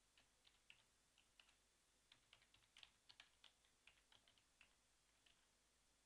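Faint typing on a computer keyboard: an irregular run of quick key clicks, thickest in the middle, stopping about five seconds in.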